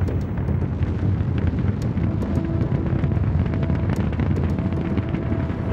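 Space shuttle lifting off: the main engines and solid rocket boosters running as a deep, steady rumble with sharp crackling through it.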